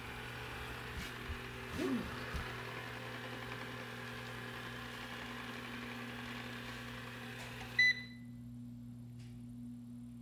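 Ecovacs DEEBOT N79S robot vacuum running its motors with a steady whir as it settles onto its charging dock. About eight seconds in it gives one short high beep and the whirring cuts off at once, as it docks. A low electrical hum stays underneath.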